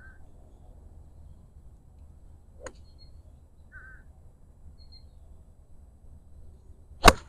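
A golf iron strikes a ball off the turf with one sharp crack about seven seconds in, the loudest sound. Before it a bird calls twice, over a low steady rumble of nearby road traffic.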